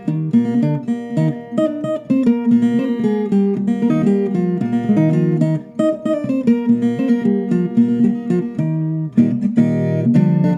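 Instrumental sertanejo music: plucked and strummed viola caipira with acoustic guitar, playing a continuous melody.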